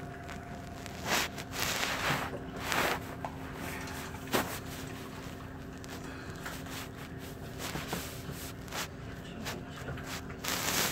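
Hospital room ambience: a steady electrical hum with scattered rustles and light knocks, the sound of a phone being handled in bed.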